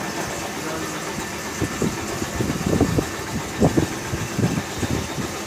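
A steady mechanical hum like an engine idling, with a cluster of irregular short knocks and clanks about two to four seconds in.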